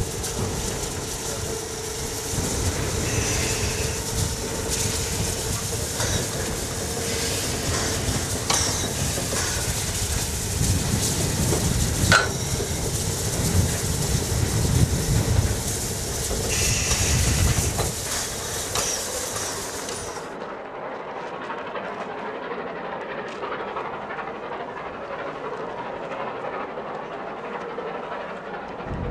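Harzer Schmalspurbahnen metre-gauge steam locomotive and coaches rolling past, wheels clicking over the rail joints with steam hissing, and a steady high tone in the first several seconds. About two-thirds of the way through, the sound cuts to a quieter, steady rushing background.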